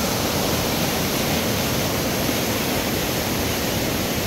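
Steady rush of a river in flood, swollen by heavy rains.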